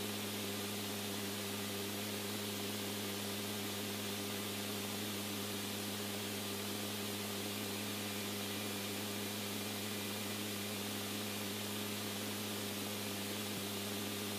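Steady hiss of an open radio channel between transmissions, with a low, even hum underneath.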